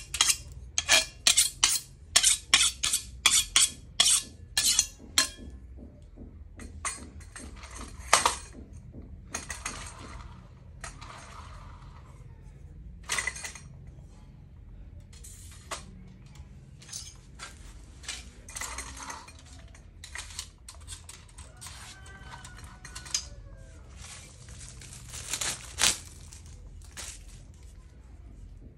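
Chef's knife drawn against a steel honing rod in a fast run of ringing metal strokes, about three a second, for the first five seconds. After that come scattered single strokes and metal clinks as knives and the steel are handled and slotted into a stainless steel knife block.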